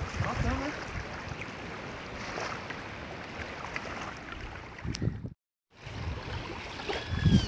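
Gusty wind rushing across a choppy lake and buffeting the phone's microphone as a rainstorm approaches; a steady noise that cuts out completely for about half a second roughly two-thirds of the way through.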